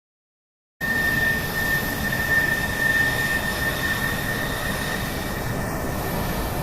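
Loud, steady rushing noise with a constant high whine through it, cutting in abruptly about a second in; no distinct bangs or knocks are heard.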